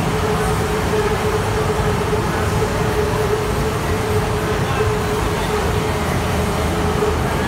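Steady drone of a running ANATA AG-6500EA single-phase gasoline generator under constant load, with a continuous pitched hum that holds unchanged throughout.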